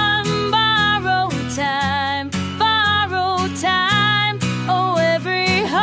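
Slow country ballad music: acoustic guitar strumming under a lead melody line with vibrato, with no sung words.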